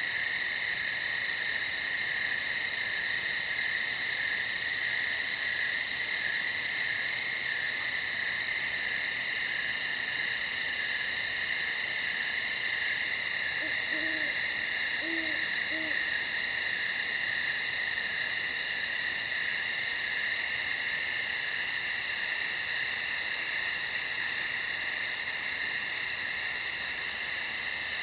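Steady chorus of night insects in the woods, one layer a fast, high pulsing trill over continuous buzzing tones. About halfway through, three short, low hooting calls sound over it.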